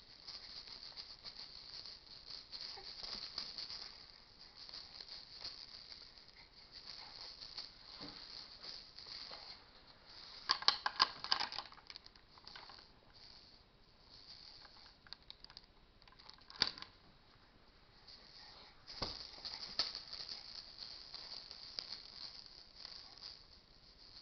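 Baby's plastic bead rattle shaken and handled in irregular bouts, with a cluster of loud sharp clacks about ten seconds in and single clacks later on.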